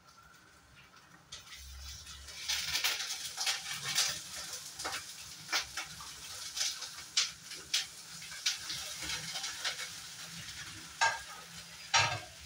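Milk sizzling and bubbling in a steel pot of ghee-roasted vermicelli, starting about a second and a half in, with frequent sharp crackles and pops and two louder pops near the end.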